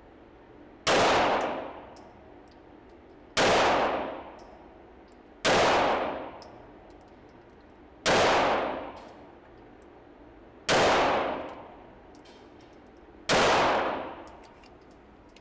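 Six pistol shots from a Laugo Arms Alien Creator 9mm, fired slowly and evenly about two and a half seconds apart, each followed by a short echoing tail off the walls of an indoor range.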